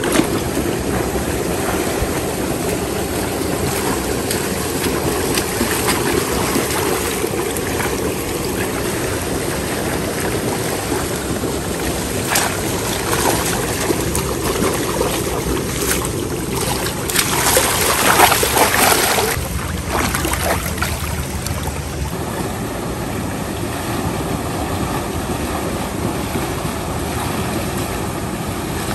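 Shallow stream running steadily over stones, with louder splashing for a few seconds past the middle as the water is churned up by someone wading and stirring it with a pole.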